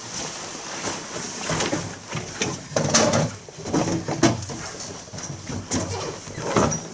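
A class of pupils settling in: chairs and desks knocking and scraping, with bags and coats rustling, in irregular bumps.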